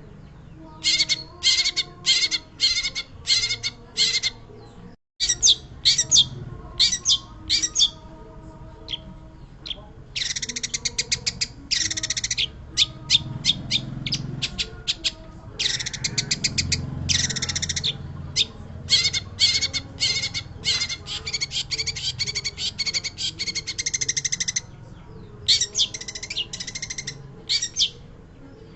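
Long-tailed shrike (pentet) singing: bursts of rapid, harsh chattering notes and fast trills, repeated with short pauses. The sound cuts out completely for a moment about five seconds in.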